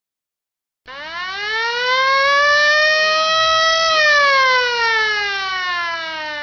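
Fire alarm siren wailing. It starts suddenly about a second in, rises in pitch for about three seconds, then falls slowly.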